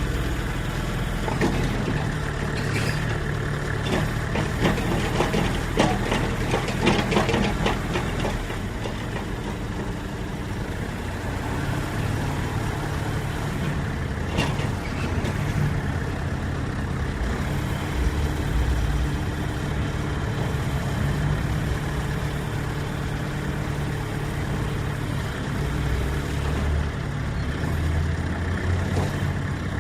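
Road construction work: a heavy diesel machine or truck engine running steadily, with a cluster of metallic clanks and knocks early on, about two to eight seconds in, and one more sharp knock about halfway through.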